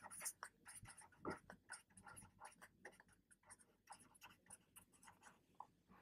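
Black marker writing on a whiteboard: faint, quick, scratchy strokes in an uneven run, thinning out near the end as the words are finished.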